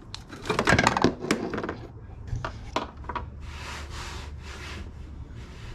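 Hand tool tightening a nut on a snorkel's front mount. There are a few sharp metallic clicks and knocks in the first second or so, then three short rasping strokes around the middle.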